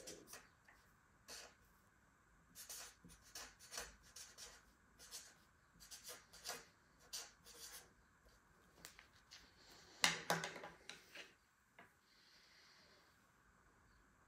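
Faint scratching and squeaking of a felt-tip marker writing on paper in short strokes, with a louder burst of rubbing and clicks about ten seconds in.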